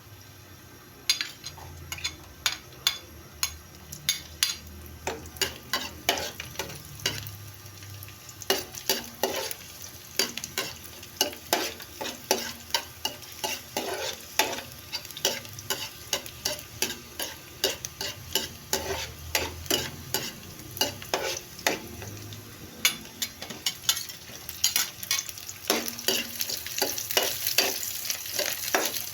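A cooking utensil stirring and knocking against a pan, about two to three strikes a second, over food sizzling in hot oil. The sizzle grows louder near the end.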